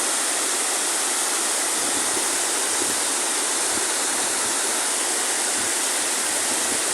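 Waterfall, water pouring down in a steady, unbroken rush.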